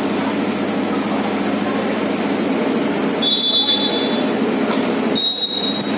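Two blasts of a referee's whistle: the first about a second long a few seconds in, the second shorter near the end. Both sound over a steady background din.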